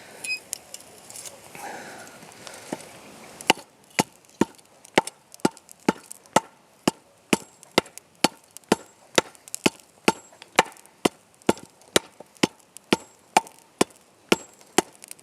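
Steady hammer blows on a hot lump of freshly made bloomery steel, about two strikes a second starting a few seconds in. The blows ring sharper as the steel consolidates into a solid mass.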